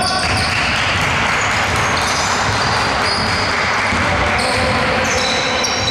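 Sounds of a basketball game on an indoor hardwood court: the ball bouncing and sneakers squeaking in short high chirps, over a steady hiss of hall noise.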